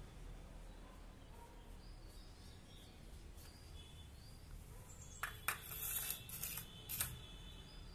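Quiet background with a few faint, distant bird chirps, then several sharp clicks and rustles about five to seven seconds in, from a steel bowl of food being handled close to the microphone.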